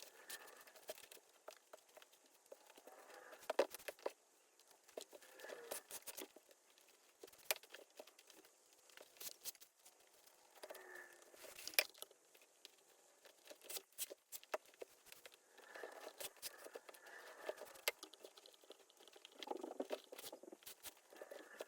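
Hands working an old Sears 1628 leather baseball glove: faint rustling and scraping of leather in repeated stretches of about a second, with scattered sharp clicks.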